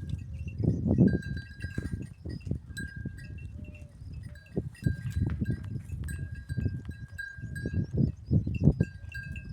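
Small neck bells on livestock ringing irregularly as the animals move, with clear, repeated tinkling strikes. Uneven low knocks and rustling run underneath.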